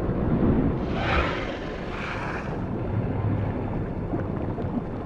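Low, steady underwater rumble with two swelling whooshes about one and two seconds in: the rush of a shark swimming close past.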